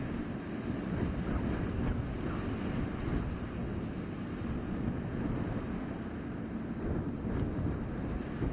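Blizzard wind blowing steadily, a dense low rush that swells and eases slightly in gusts.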